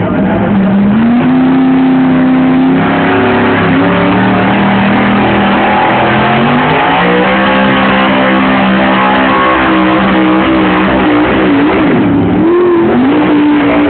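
Chevrolet V8 pickup engine at high revs under heavy load, pulling a weighted sled. The engine note climbs, holds and steps in pitch several times, dips and wavers near the end, then climbs again.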